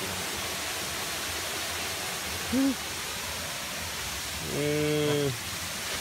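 Steady rushing of a waterfall. A person's voice breaks in with a short sound about two and a half seconds in and a longer drawn-out one at about five seconds.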